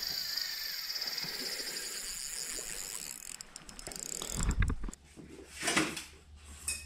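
Spinning fishing reel being cranked: a fast, steady whirring click of its gears for about three seconds, then a few scattered clicks and a low thump.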